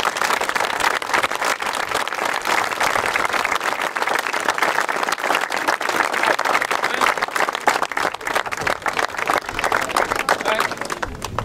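Crowd applauding: many hands clapping in a dense, steady patter that falls away near the end.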